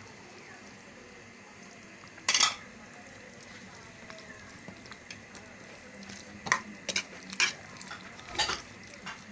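A metal spatula stirring a simmering chicken stew in a pan, scraping and clinking against the pan over a steady low sizzle. The loudest scrape comes about two seconds in, with a run of shorter clinks near the end.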